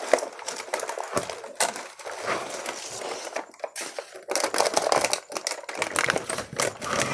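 Cardboard carton and plastic wrapping rustling and crinkling, with many quick clicks and scrapes, as plastic-wrapped ceiling fan blades are worked out through the end flap of their box.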